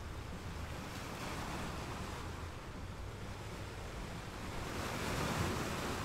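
Sea waves washing: a steady rush of surf that swells about a second in and again near the end.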